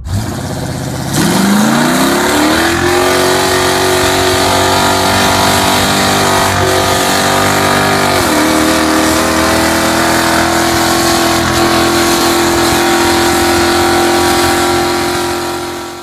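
Citroen C1's 1.0-litre three-cylinder engine pulling hard under full acceleration, heard from inside the cabin. The note climbs in pitch over the first couple of seconds and then holds high, with a brief dip about eight seconds in at a quick gear change.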